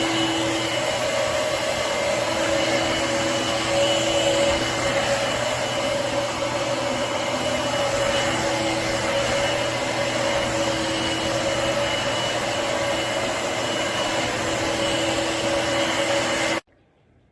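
Shark Navigator Freestyle cordless stick vacuum running steadily, a rush of air with a steady motor whine, cutting off suddenly near the end.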